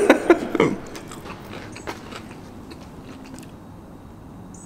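A man's voice trails off in the first second, then a man chewing a mouthful of scrambled eggs, with faint scattered clicks.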